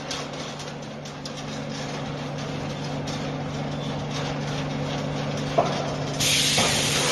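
Steel rebar wire-mesh welding machine running: a steady low electrical hum with a single sharp clack a little before the end, then a loud hissing rush that starts suddenly near the end.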